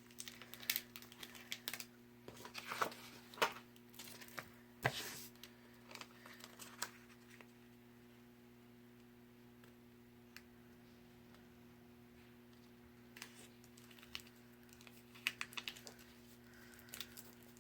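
Light taps, clicks and rustles of cut vinyl and cardstock pieces being handled and pressed onto a paper treat box. They come scattered for the first several seconds, go quiet for a few seconds in the middle, and return near the end, over a faint steady hum.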